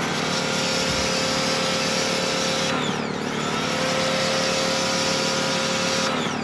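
Compact pressure washer running with a steady motor whine under the hiss of the water spray as it is aimed at a car wheel. It stops briefly about three seconds in, then runs again until shortly before the end.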